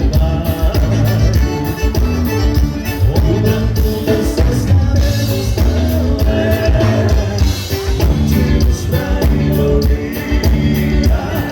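Gaúcho dance band playing live: loud, full band music with a steady, fast drum beat.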